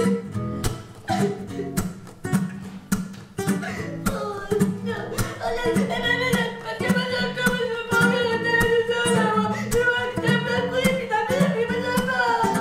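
Music: a voice singing over plucked acoustic guitar, with frequent strums.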